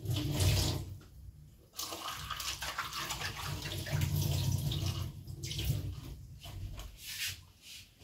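Water running from a kitchen tap and splashing into the sink. It stops briefly about a second in, then runs steadily again before breaking up near the end.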